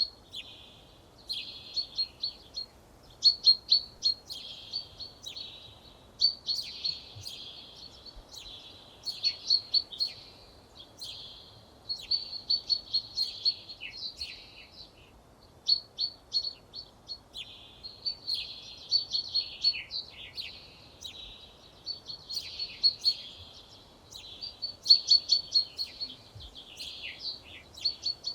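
A songbird singing: phrase after phrase of rapid, sharp high notes and quick sweeps, each phrase a second or two long with short pauses between.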